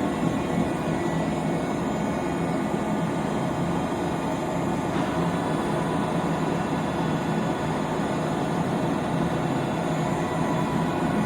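Stanko 1516 vertical lathe running: a steady mechanical hum of its drive motor and gearbox with several steady tones, and a faint click about five seconds in.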